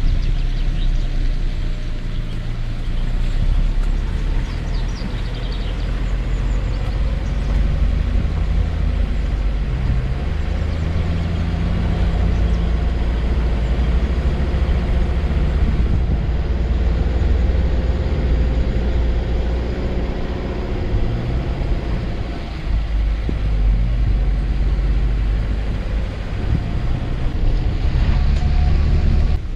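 Passenger car driving slowly along a rough dirt forest track: a steady low engine and tyre rumble, with the engine note rising and falling as the throttle changes.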